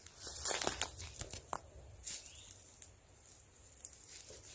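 Irregular rustling and crackling of brush and briars as someone pushes through dense undergrowth, with scattered snapping clicks.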